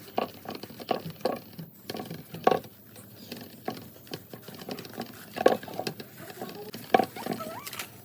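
Dry straw and coconut-husk fibre rustling and crackling as it is handled and woven, in irregular clicks and scratches. A few faint short chirp-like calls are heard, one near the end.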